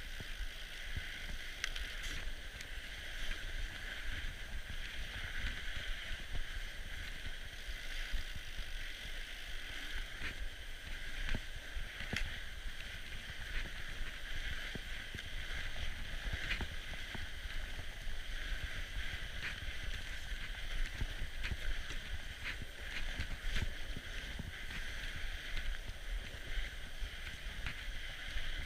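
Norco Bigfoot fat bike riding over a packed snow singletrack, heard from a handlebar-mounted camera: a steady rumble of the tyres and frame, with scattered sharp clicks and knocks as the bike rattles over bumps.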